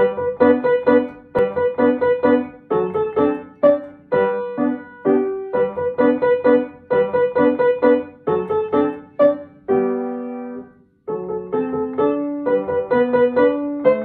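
Upright piano played in short, detached notes, one note struck over and over above a lower two-note figure. About ten seconds in a chord is held and left to die away, then the short repeated notes start again.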